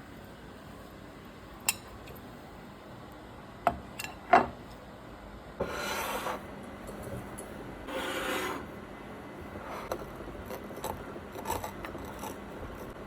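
A few sharp clicks and knocks, then two rasping scrapes of under a second each, about two seconds apart, followed by lighter clicks.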